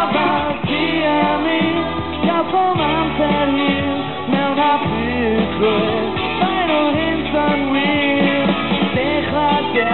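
Rock band playing live on keyboards, bass guitar, guitars and drums, with a bending melody line over a steady bass part.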